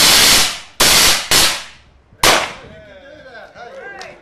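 Small 5-pound hydrogen-oxygen rocket thruster firing: a loud steady firing cuts off about half a second in and dies away, then three short, sharp pulse firings follow, the last about two seconds in.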